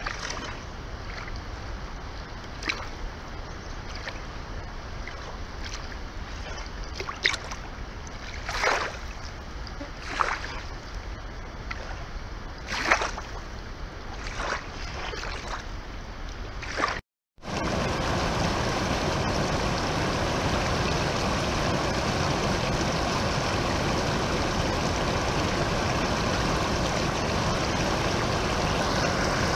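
Small river waves washing onto a sandy bank, with a few louder splashes as wavelets break. Just over halfway it changes to the steady, louder rush of river rapids.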